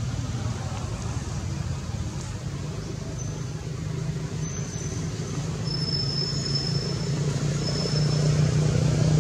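A low, steady motor rumble, like a vehicle engine running close by, growing louder toward the end. Faint thin high-pitched tones come and go in the middle.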